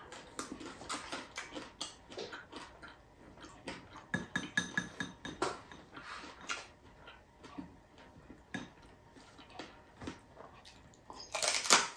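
Crispy fried pork belly being chewed close to the microphone, with a scatter of small crackling crunches and one louder crunchy bite near the end.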